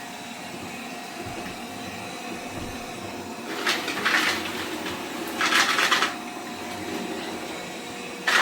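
Deenkee DK650 robot vacuum running with a steady motor hum. Twice near the middle, about a second apart, a short loud hissing burst rises over it.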